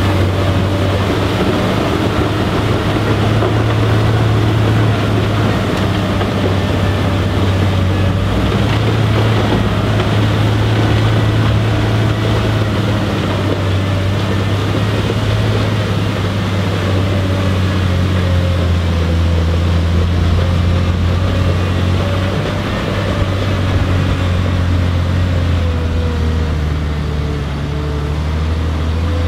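Volvo L70F wheel loader's diesel engine running hard to drive a front-mounted Øveraasen snowblower that is throwing snow into a truck bed. It makes a loud, steady drone that dips slightly in pitch and loudness near the end.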